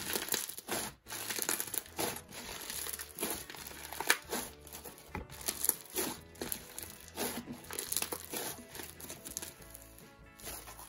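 Butter slushie slime, a white glue slime with clay mixed in and slushie beads, squeezed and kneaded by hand. It gives irregular crackling, crunchy squishes about once or twice a second.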